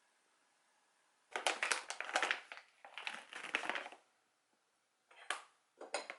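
Crisp food crunching in repeated crackles for about two and a half seconds, then two short crunches near the end.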